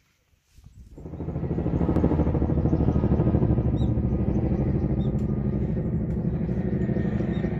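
Helicopter flying overhead: a loud, low, rapidly pulsing drone that swells in about a second in and slowly fades.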